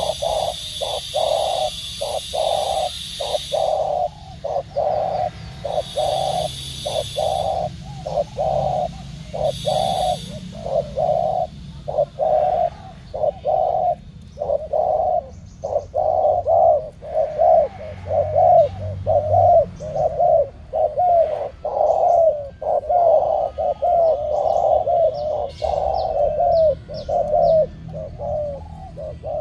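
Spotted doves cooing without pause in a fast run of short, low coos, two to three a second, as caged birds call against each other in a contest.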